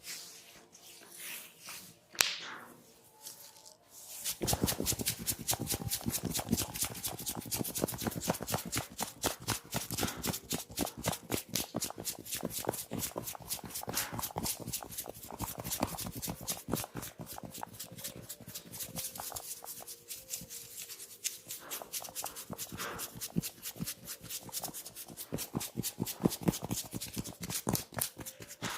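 Rapid, even tapping strokes of a percussive massage begin about four seconds in and keep going. Before them there is softer rubbing and a single sharp click.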